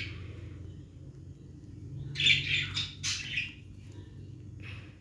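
A few harsh bird squawks, a cluster about two to three and a half seconds in and another near the end, over a steady low hum.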